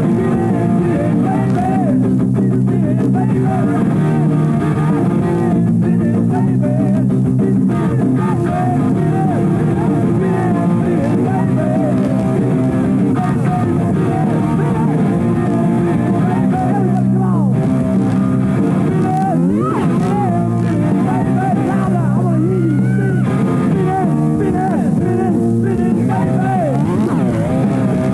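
Rock band recording in an instrumental stretch: a guitar plays lead lines with bent, sliding notes over steady, sustained chords.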